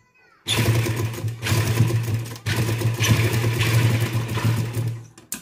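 Sewing machine stitching lace trim onto a fabric edge, running in two stretches with a brief pause about two and a half seconds in, then stopping, followed by a short click.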